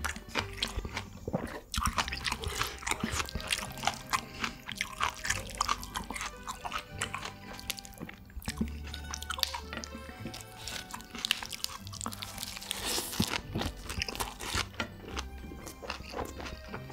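Close-miked eating sounds, crunching and chewing food, over background music.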